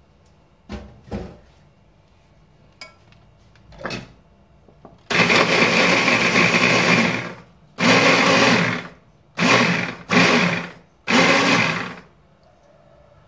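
MR DIY multi-functional hand blender's motor running on its mini chopper attachment, mincing raw meat: one run of about two seconds, then four short pulses, each winding down as the button is let go. A few light knocks come before the motor starts.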